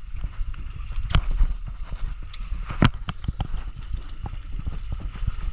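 Steady low rumble of wind and water around a boat at sea, broken by a few sharp knocks, the loudest about a second in and just before three seconds in, with lighter ticks after them.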